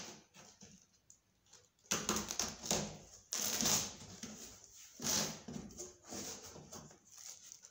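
A cardboard box being opened by hand: packing tape slit with a blade and torn, then the cardboard flaps pulled back, in several short scraping, tearing bursts.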